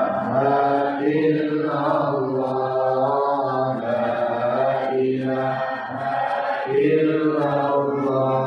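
Islamic dhikr chanted in a slow, drawn-out melodic recitation, long held phrases with short breaks between them.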